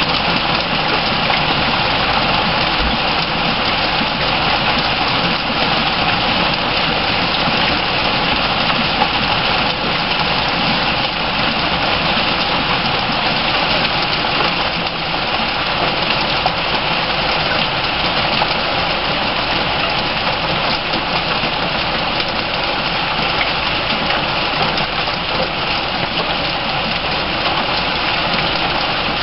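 Heavy rain falling steadily, a dense, unbroken hiss of drops on the garden.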